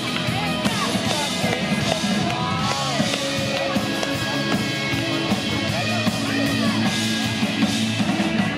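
Live rock band playing: electric guitar and drum kit with a man singing into a microphone.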